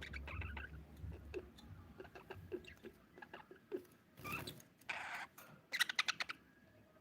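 Budgerigar chirping and chattering: short high chirps and quick clicks, with a louder, rougher burst about four seconds in and a quick run of sharp clicks near the end.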